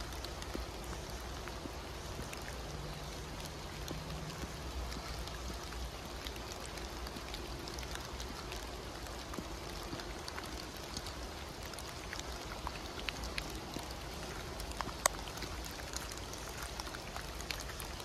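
Heavy rain falling steadily on the forest, with scattered sharper drops tapping close by. The taps come more often in the second half, and one louder one lands near the end.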